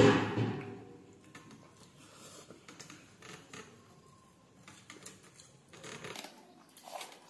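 Quiet hand-eating sounds: scattered light clicks and scrapes of fingers working rice and food on stainless steel plates. A brief loud noise right at the start fades within about a second.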